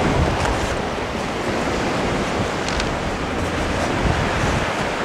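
Steady wind buffeting the microphone over the noise of surf on a beach, with a restless low rumble.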